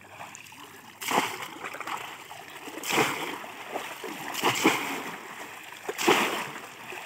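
Water splashing as woven bamboo polo fish traps are pushed down into shallow water, with four heavy splashes about a second and a half apart.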